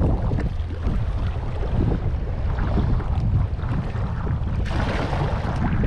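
Wind buffeting the microphone in a steady low rumble over sea water washing against the rocks, with a louder hiss of wash near the end.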